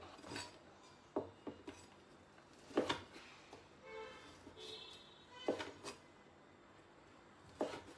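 Kitchen knife cutting jujubes (Chinese red dates) in half on a cutting board: about half a dozen sharp, irregular knocks of the blade on the board.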